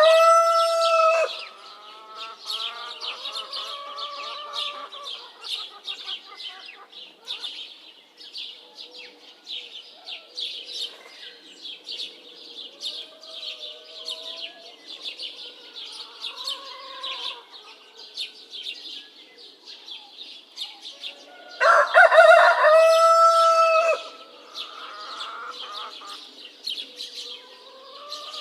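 A rooster crows, loudly and at length, about 22 seconds in; the tail of another crow is at the very start. Between the crows, small birds chirp busily without a break, and chickens give softer clucking calls.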